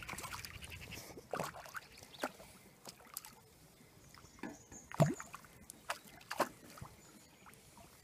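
Hooked skimmer bream splashing at the water's surface beside a landing net: a handful of short, separate splashes and plops, the loudest about five seconds in.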